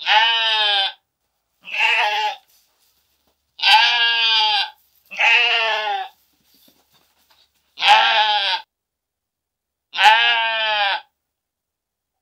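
Sheep bleating: six separate quavering bleats, each about a second long, with short silent gaps between them.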